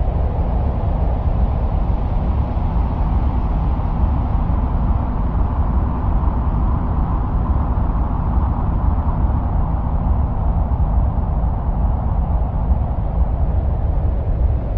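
Steady, deep, wind-like rumble with a soft hiss above it, presented as the sound of Mars, with no breaks or separate events.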